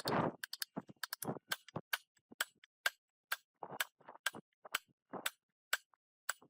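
Irregular series of sharp metallic taps and clinks, roughly two a second, with a few short scraping noises among them, from hand tools working on old diesel engine parts.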